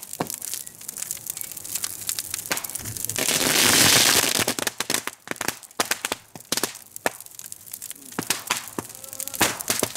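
A large burning king boat of wood and paper crackling, with many irregular sharp pops and cracks. A loud rushing hiss swells about three seconds in and lasts about a second.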